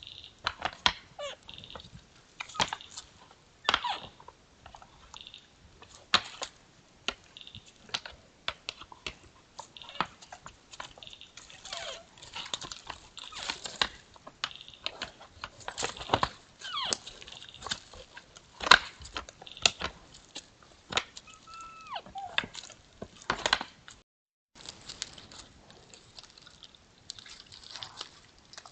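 Two sambar deer sparring, their antlers clacking and knocking together in irregular bursts, with a few short, falling squeal-like calls between the clashes.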